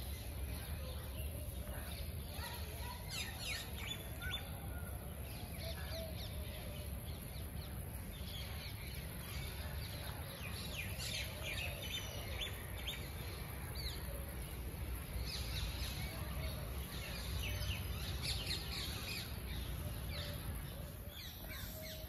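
Many short, high chirps and squeaks from a daytime roost of flying foxes (Indian fruit bats) hanging in the trees, thickening in bouts, over a steady low wind rumble on the microphone.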